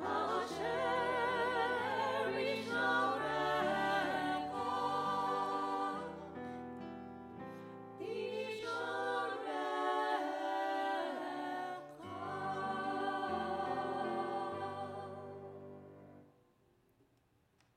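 Women's and a man's voices singing a Hebrew liturgical song in harmony, the top voice with a wide vibrato, over sustained accompaniment. The last chord dies away near the end, leaving near silence.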